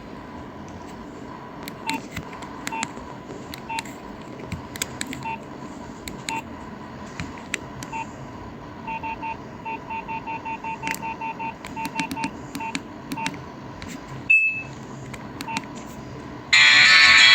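Nokia 1661 mobile phone keypad beeps as its buttons are pressed to scroll through the menu, short beeps mixed with key clicks and a quick run of beeps a little past halfway. About a second before the end, a ringtone starts playing loudly from the phone's speaker.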